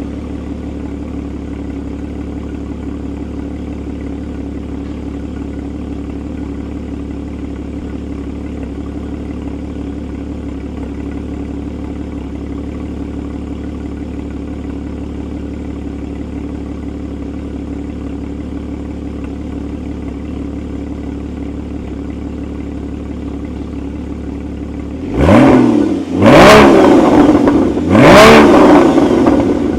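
Porsche Boxster 981's flat-six engine idling steadily, then blipped hard three times near the end, each rev rising sharply and dropping straight back.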